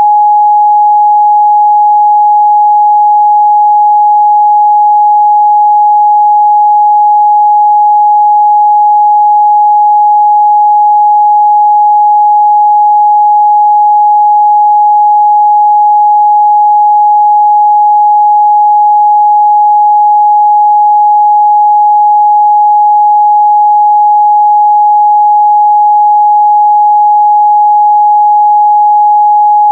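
Steady, loud 836 Hz sine-wave test tone, a pure unwavering pitch with no harmonics, used to check speaker and headphone response.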